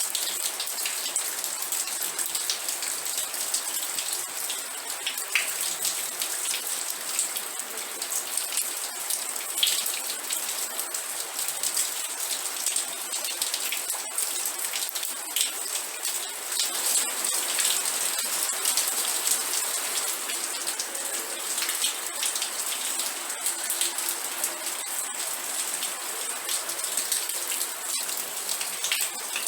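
Steady rain falling on a surface, a dense continuous patter of drops with many small individual ticks.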